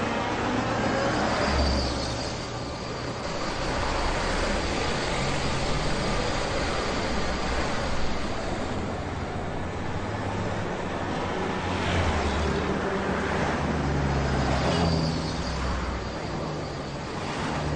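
Hyundai sedan's engine running at low speed with tyre noise as the car pulls off the road, stops and moves on.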